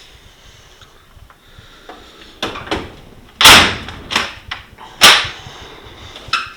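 Steel tool box drawers being shut and pulled open: a series of metal clunks and rattles, the two loudest about a second and a half apart past the middle.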